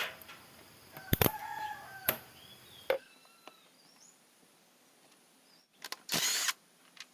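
A few sharp clicks and knocks from hand work on the engine. A faint rooster crow runs underneath from about one to two seconds in, with a few small bird chirps. Two short hissing bursts come near the end.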